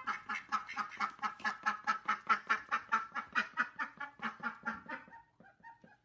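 Indian runner duck quacking in a rapid, even run of about five short quacks a second, dying away near the end.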